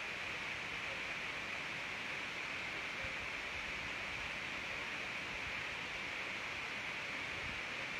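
Steady, even hiss of background noise, with no other sound rising above it.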